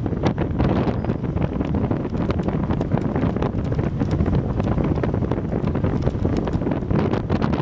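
Steady wind buffeting the camera microphone on the open deck of a moving cruise ship, a constant low rumble with no pauses.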